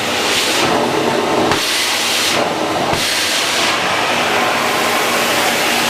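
Electrolux UltraFlex Green canister vacuum running loud and steady, air rushing in through its hard-floor parquet tool, with a low motor hum underneath. The rush changes briefly a couple of times as the tool moves over the floor.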